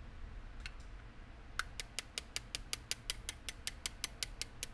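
Quick, light taps of a small hammer on a steel pin punch, about five or six a second, starting a little over a second and a half in, driving an assembly pin out through a Winchester Model 42 receiver that rests on a lead block.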